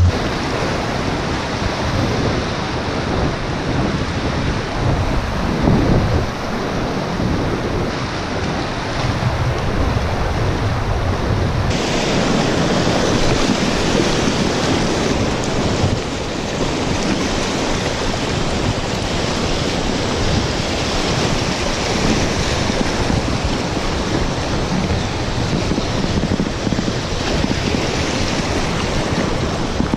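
Whitewater rapids rushing and splashing close around a paddleboard, with wind buffeting the microphone. The rushing turns brighter and hissier about twelve seconds in.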